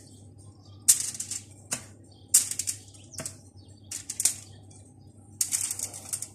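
Aluminium foil crinkling in about six short bursts as potato wedges are set down on a foil-lined baking tray, with a couple of sharp taps.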